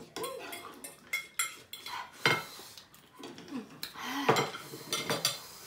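Forks and chopsticks clinking and scraping against ceramic plates and bowls while people eat noodles, with a handful of separate sharp clinks.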